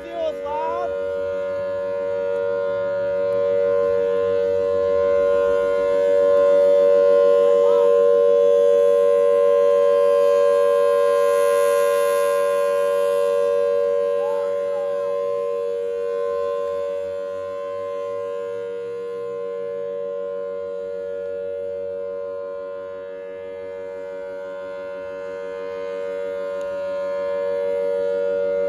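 Federal Signal Thunderbolt 1003 tornado siren sounding at full speed: a steady, loud two-note chord that holds its pitch. It swells louder in the first half, fades somewhat past the middle and grows again near the end as the rotating head turns.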